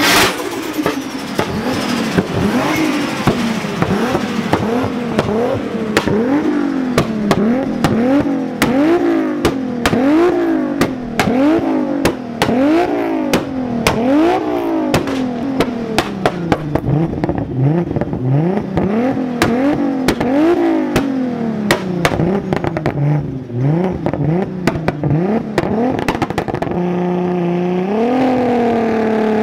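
Mk4 Toyota Supra's straight-six engine revved over and over through a loud aftermarket exhaust, the pitch climbing and dropping about once a second, with sharp exhaust pops and bangs between the revs. About 27 seconds in it settles to a lumpy idle, then starts to rise again.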